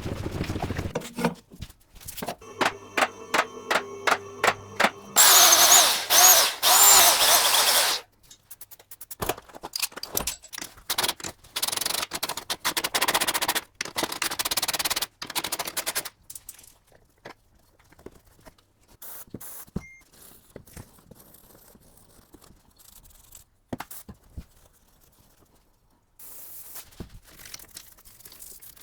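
Workshop repair sounds on a car's rear suspension: a power tool runs in long loud bursts, between runs of sharp metallic clicks and knocks.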